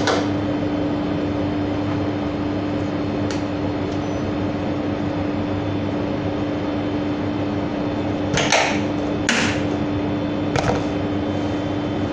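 Gelato batch freezer running with a steady hum as sorbet is drawn out of it. A few short scrapes and knocks of a spatula against the machine and pan, mostly in the second half.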